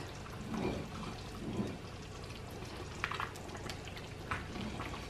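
Thick, cooked fumbwa (wild spinach) stew bubbling in a stainless-steel pot while a metal spoon stirs it, with a few sharp clicks of the spoon against the pot.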